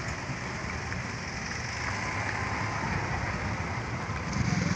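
Steady outdoor background noise at a ferry pier: a rushing hiss with a low rumble.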